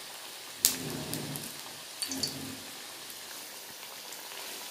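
Corn vadas sizzling steadily as they deep-fry in hot oil in a cast-iron kadai. A metal spoon knocks sharply against the pan about half a second in, and again more softly at about two seconds, as the vadas are turned over.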